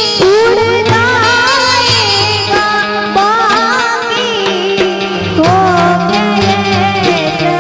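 A song: a solo voice sings wavering, ornamented melodic lines over sustained instrumental backing with steady low held notes.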